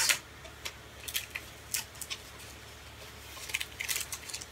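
Clear cellophane packaging crinkling and rustling as sticker sheets in plastic sleeves are handled and set down on a table, in short irregular crackles with a denser flurry near the end.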